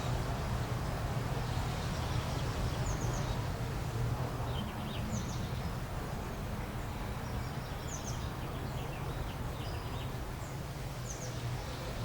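Birds giving short, high chirps every couple of seconds over a steady low rumble of outdoor background noise.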